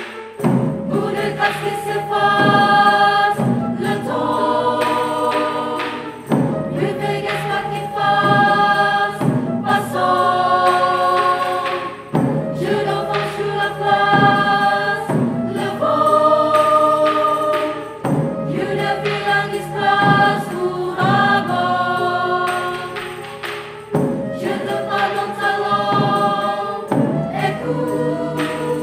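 Mixed choir of women's and men's voices singing sustained chords in repeating phrases of about two seconds each.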